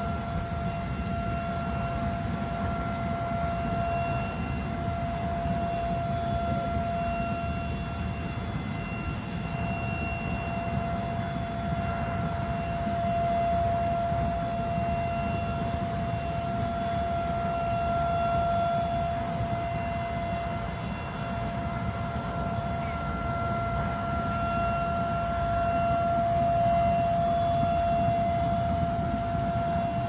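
The Soda Springs captive geyser in full eruption, its water jet making a continuous rushing roar. A steady whistle-like tone rides over it throughout.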